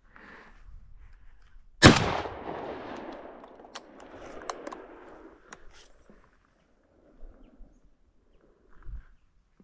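A single shotgun shot about two seconds in, its report rolling away over about three seconds, with a few faint clicks after it.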